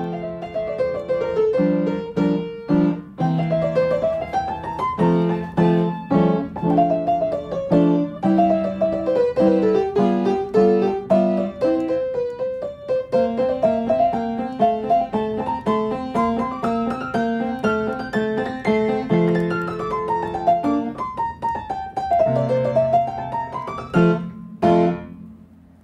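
Background music: piano playing quick running notes in rising and falling runs over a steady lower accompaniment, starting and cutting off abruptly.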